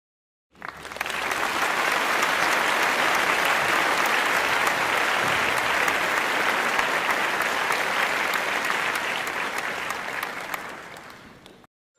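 Audience applauding, a dense patter of many hands clapping that starts about half a second in, holds steady, and fades out near the end.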